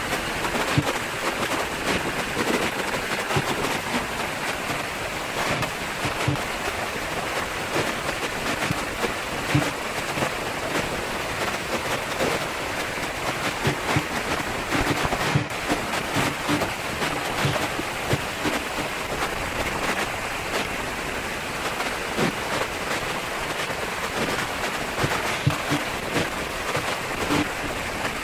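Strings of firecrackers going off up close: a dense, continuous rapid crackle of small bangs, with scattered louder pops.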